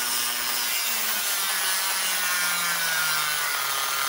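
Dremel rotary tool with a slitting-saw disc cutting through stainless steel: a steady grinding hiss over a motor whine that slowly falls in pitch.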